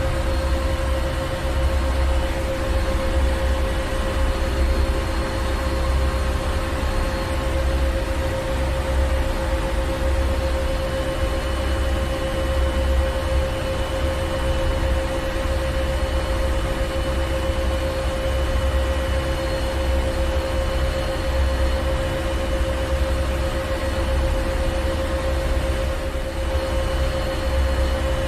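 Ship's engine room machinery running steadily: a deep rumble that swells and eases unevenly, under a constant mid-pitched hum and a wash of mechanical noise.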